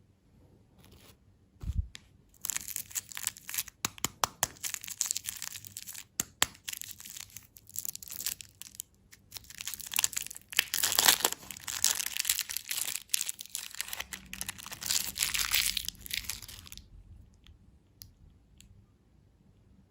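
Candy wrapper being torn open and crinkled: a dense run of crackling rustles and sharp snaps from about two seconds in, stopping a few seconds before the end. A single low thump comes just before it.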